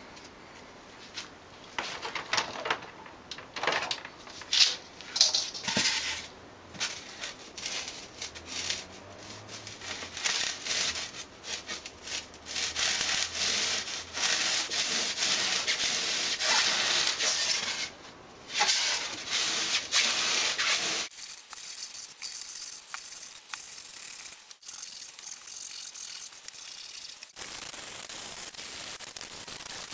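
Ordinary hand saw cutting through a block of expanded polystyrene foam: a rasping back-and-forth at first in scattered strokes, then steady and loudest from about twelve to twenty-one seconds. It then breaks off abruptly, leaving quieter rubbing as the cut foam is handled.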